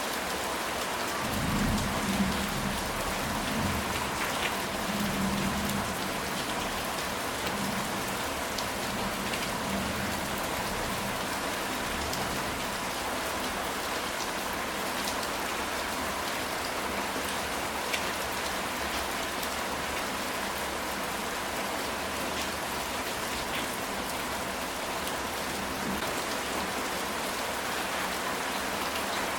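Steady rain falling on a ceramic tile roof, with scattered drop ticks. A low rumble of thunder comes in about two seconds in and fades within a few seconds.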